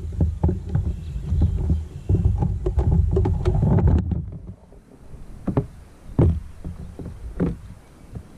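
Knocks and taps on a kayak hull over a low rumble of wind and water. The rumble drops away about four seconds in, leaving a few separate knocks.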